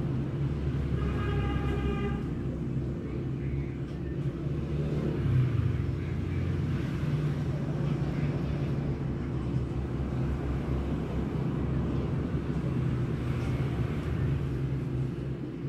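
Steady low mechanical rumble and hum throughout, with a short pitched beep about a second in.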